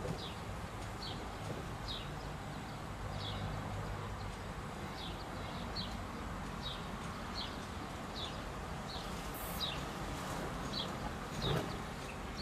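A small bird calling over and over: short, high chirps that fall in pitch, about one or two a second, over a steady low background noise. A single soft knock near the end.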